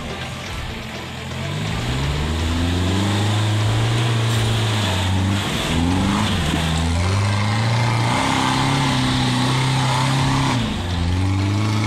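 An old off-road Jeep's engine revving hard under load as it climbs a muddy trail. The engine note rises and holds, drops and rises again several times, with a short dip and another climb near the end.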